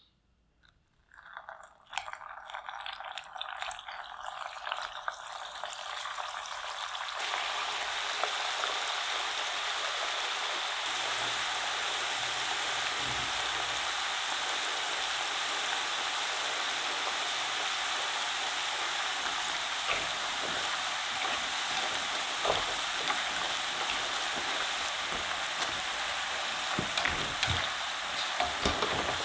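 Shredded-potato balls deep-frying in a pan of hot oil. A dense sizzle starts about two seconds in, builds over the next few seconds, then holds steady. A few light clicks come near the end.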